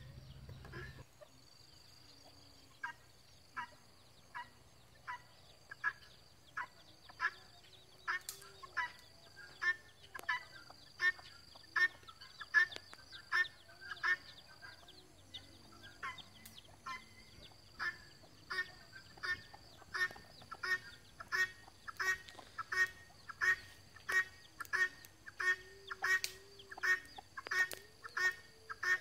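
A bird calling over and over in short, evenly spaced calls. They start slow, then come faster and louder, about one and a half a second by the end.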